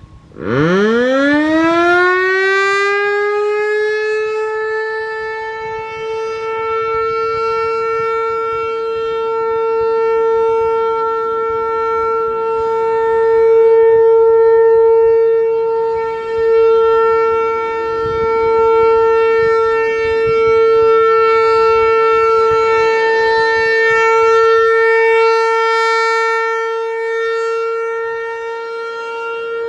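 ASC T-128 outdoor warning siren starting up during its monthly test: a single tone that climbs steeply in pitch over the first couple of seconds, then holds a steady alert tone. The loudness swells and fades slowly.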